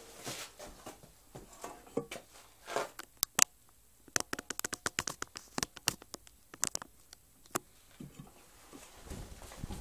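A Simson S50 moped being wheeled by hand: a run of sharp, irregular clicks and taps, several a second, for about four seconds, with a low rumble building near the end.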